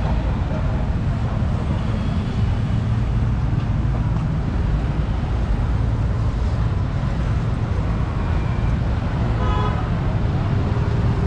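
Street traffic running steadily as a low rumble, with a short vehicle horn toot about nine and a half seconds in.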